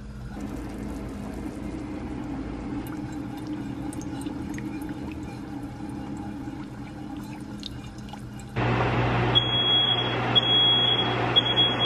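Sugar melting in a saucepan as it is stirred with a spatula, with faint crackles over a low hum. About eight and a half seconds in, a louder steady rushing noise comes on. Soon after, a smoke alarm starts beeping in a high tone, three beeps about a second apart and then a pause, set off by the caramelizing sugar.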